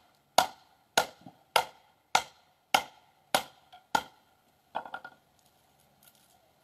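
Kindling being chopped on a wooden chopping block: seven sharp, evenly spaced chops, a little under two a second, followed by a short clatter of lighter knocks.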